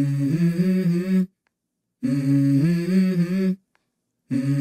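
A short hummed vocal phrase stepping up in pitch, repeated identically about every two and a quarter seconds with full silence between repeats, like a looped vocal sample in an intro soundtrack.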